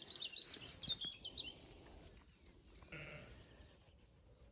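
Faint sheep bleat about three seconds in, against quiet birdsong chirping from small birds.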